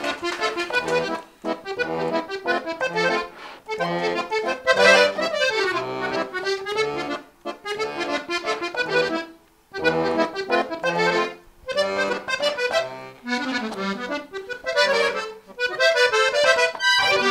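Hohner three-row button accordion played solo: a lively norteño-style melody in quick runs of notes and chords, broken by brief pauses between phrases.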